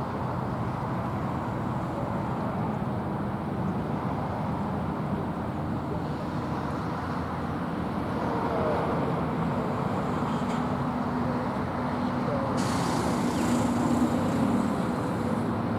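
Steady rumble of passing vehicle traffic, with a hiss that starts suddenly about three-quarters of the way through and runs on.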